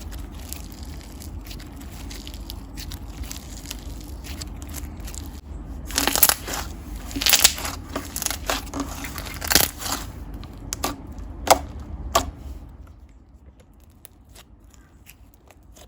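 Hands squishing and poking a thick slime with small mixed-in bits, making crackly clicks and pops. The loudest pops come in a cluster from about six to twelve seconds in, and the sounds grow softer near the end.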